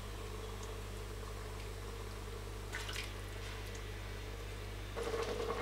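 Steady low hum, with faint liquid sounds of a spatula stirring meat broth in a pressure cooker pot and a brief scrape about three seconds in.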